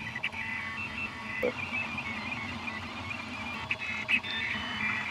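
Orion Delta 3D printer printing, its stepper motors whining in short tones that keep changing pitch as the belts drive the print head back and forth, over a steady low hum.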